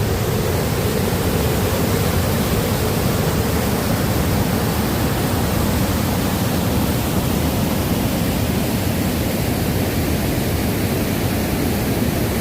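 Waterfall rushing close by, a loud, steady roar of falling water.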